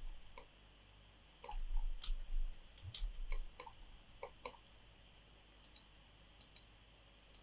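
Computer mouse clicking: scattered single clicks and quick double clicks, with a few low thuds about one and a half to three seconds in.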